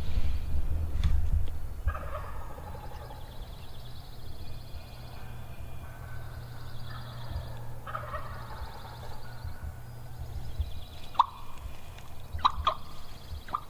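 A wild turkey gobbler gobbling from the roost: two rattling gobbles, about two and eight seconds in. It is a hot bird sounding off at first light.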